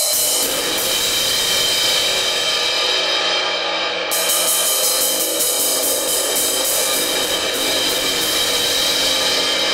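Zildjian 19-inch A Custom Projection Crash cymbal struck over and over with a drumstick, ringing in a continuous bright crash wash. The crack in its body has been repaired by cutting it out with a circular hole.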